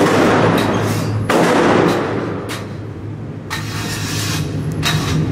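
Gunfire in an indoor shooting range: shots about a second apart, each followed by a long echoing tail off the range walls. A steady low hum runs beneath.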